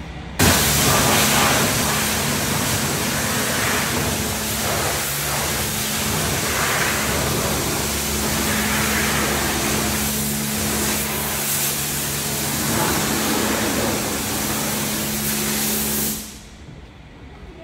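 Self-service car wash pressure washer spraying water: a loud, steady hiss of the jet over the hum of the pump. It starts abruptly about half a second in and cuts off abruptly near the end, as the gun's trigger is pressed and released.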